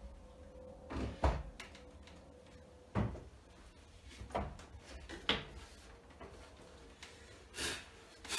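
Wooden pallet panel being pushed and shifted on a workbench: a series of irregular wooden knocks and bumps with short scraping slides, about seven in all.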